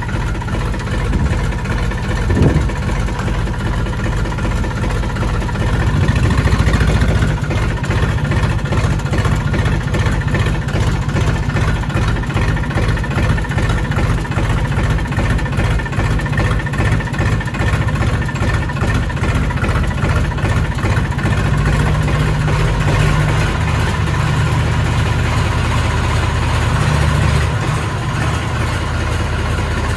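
Diesel tractor engine running steadily just after a push start, its battery run flat; it gets louder about six seconds in.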